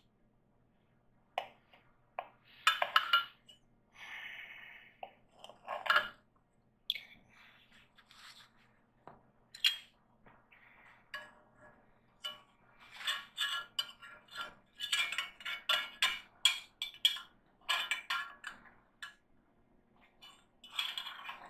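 Kitchen utensils and dishes clinking and scraping as they are handled: scattered short knocks and clinks, thickening into a busy run of clatter in the second half.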